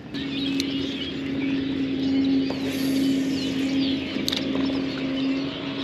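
Small electric motor, likely a trolling motor, switched on and running with a steady hum, over light water noise and crackle.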